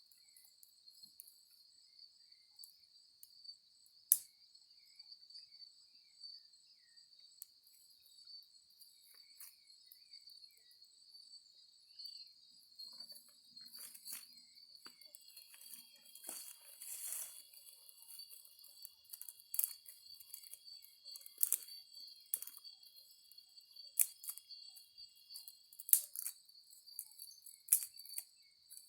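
A steady high-pitched drone of crickets, over scattered sharp snaps and crackles from a small twig campfire. The snaps come more often in the second half, and the loudest are about four seconds in and near the end.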